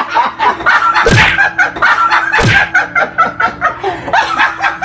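People laughing hard without a break, in quick bursts of voice. Two loud smacks stand out, about a second in and again about two and a half seconds in.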